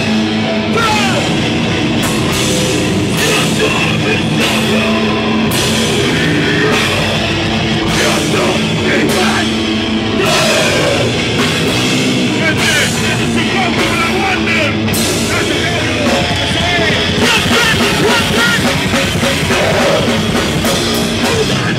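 Rock band playing loudly live: electric guitars and bass over a drum kit with cymbals.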